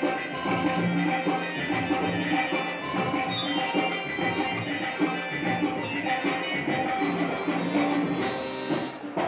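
Live devotional bhajan music led by tabla drumming, with jingling hand percussion and a held melody line.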